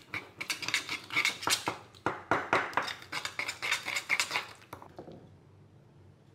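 Metal spoon stirring red paste and sesame oil together in a small ceramic bowl, clinking and scraping against the bowl in quick strokes; the stirring stops about five seconds in.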